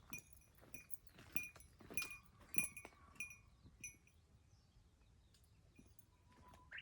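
Light metallic clinks with a bell-like ring, coming in a steady rhythm about every 0.6 seconds, like a small bell or metal gear jingling with each step, then dying away after about three seconds.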